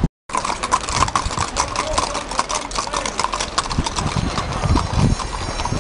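Horse's hooves clip-clopping on a paved street as a ridden horse passes, a quick irregular run of hard hoofbeats. The sound cuts out completely for a moment just after the start.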